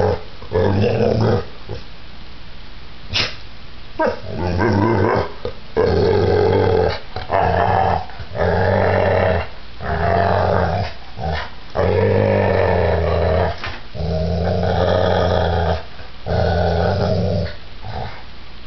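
Pit bull growling in play while mouthing a person's bare feet: a long run of low rumbling growls, each about a second long, with short breaks between them.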